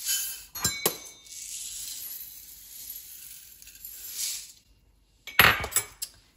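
Dry steel-cut oats poured from a stainless steel measuring cup into an empty ceramic slow-cooker insert, a steady pattering hiss of falling grain for a few seconds. Near the end come several loud clinks and knocks as the metal cup and the oat can are set down.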